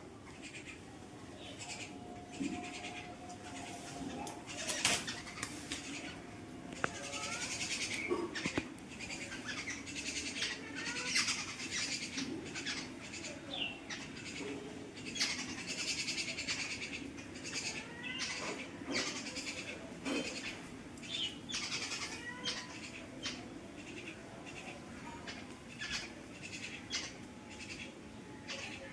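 Small pet birds chirping and chattering softly, in repeated high twittering phrases, with many scattered clicks and rustles.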